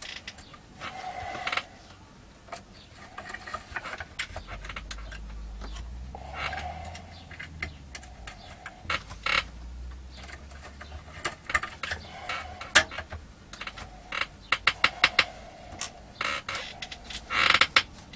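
Metal shielding cover being fitted over a CRT monitor's line output transformer and screwed down with a hand screwdriver: irregular small clicks and knocks of metal and plastic, with a burst of sharp clicks near the end.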